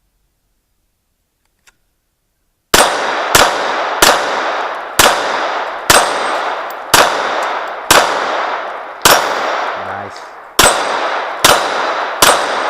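A Springfield XD pistol fired eleven times at steel targets, starting about three seconds in. The shots are mostly a second or so apart with a few quicker pairs, and each has a long ringing tail.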